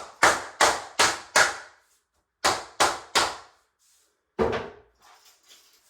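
The last luxury vinyl plank of a floor being knocked into place with a hammer: about eight sharp knocks, a quick run of five, then three, then one more.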